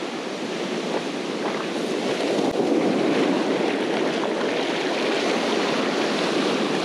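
Ocean surf: waves breaking and foamy water rushing up over the sand.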